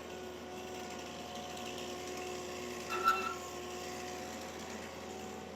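Tree-felling machine running with a steady hum of a few held tones. About three seconds in comes a short, sharp, high-pitched sound, the loudest moment.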